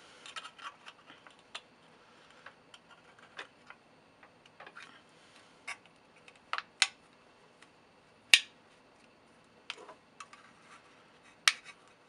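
A thin aluminium drink can crinkling and clicking irregularly as a knife blade presses creases into its wall, with a few sharper ticks, the loudest about eight seconds in and another near the end.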